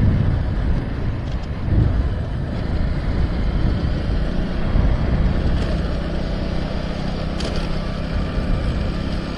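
Motorcycle engine running at a steady road speed, with a steady low rumble of wind and road noise on the bike-mounted microphone.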